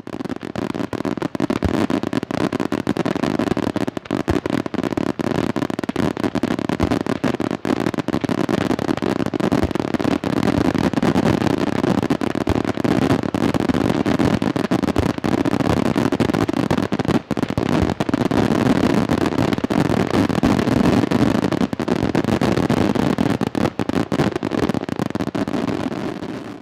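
Aerial firework shells from a Senatore Fireworks display bursting in a dense, continuous barrage of overlapping bangs and crackle, fading out at the end.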